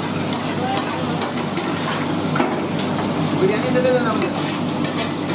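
Steady sizzle of food frying on a kitchen stove, with a few sharp metallic clinks and faint voices in the background.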